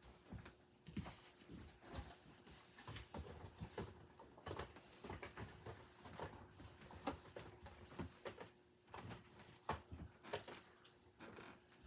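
Faint handling noise: scattered rustles, taps and light knocks of boxed toys and packaging being moved about, with a couple of louder knocks near the end.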